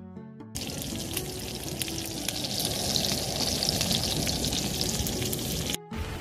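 Slices of pork belly and garlic cloves sizzling and crackling in a frying pan, with a steady spatter of small pops. A half-second of soft music comes before it, and it cuts off briefly near the end.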